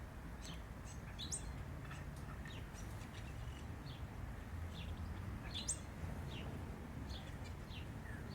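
Birds chirping, short scattered high calls over a low steady hum.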